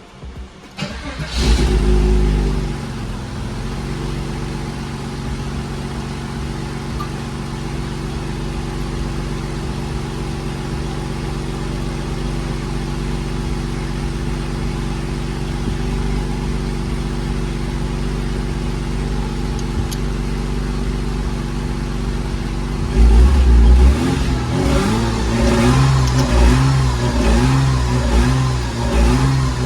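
Porsche 986 Boxster's flat-six engine starting about a second in, flaring briefly, then idling steadily. About three-quarters of the way through it is revved in a series of short blips, the pitch rising and falling roughly once a second.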